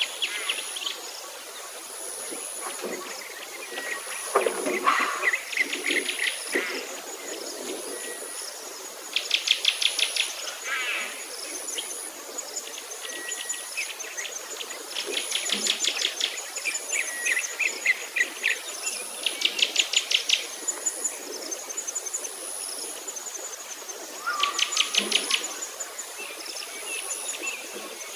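Birds and insects. A high insect chirr pulses evenly about once a second, and over it a bird repeats a short, rapid trill every few seconds.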